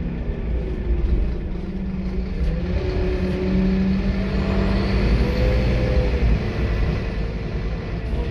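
Scania K230UB bus's rear-mounted diesel engine pulling hard, heard from the back seats inside the saloon. Its note dips and then climbs over a few seconds as the bus accelerates, under a steady low rumble and a faint high whine that rises and falls near the middle.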